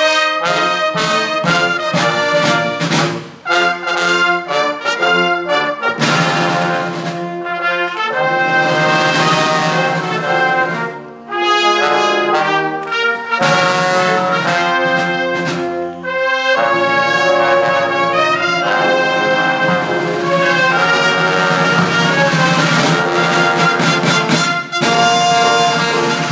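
Police brass band playing a slow piece on trombones, horns and trumpets. It opens with short separate chords and moves to longer held chords after about six seconds.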